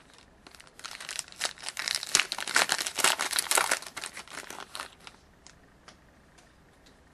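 A foil wrapper on a 2011-12 Contenders hockey card pack is torn open, with a dense crinkling and tearing of the foil for about four seconds. It is loudest in the middle and then gives way to a few light ticks as the cards are pulled out.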